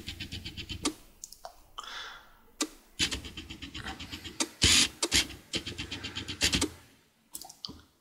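Close handling noise at the camera: several bursts of rapid ticking and rubbing, about ten ticks a second, with a few knocks, as the camera is moved and refocused close up.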